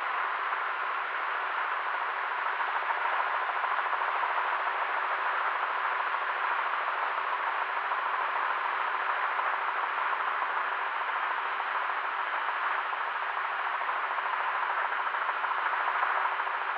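Helicopter in flight: a steady, even rush of engine and wind noise with a faint steady hum underneath.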